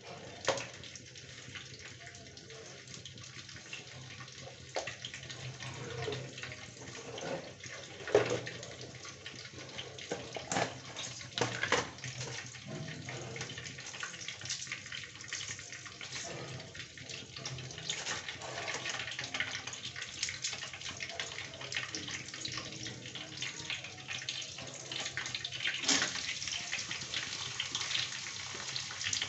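Steady rush of water, like a running tap, with scattered knocks and clatters.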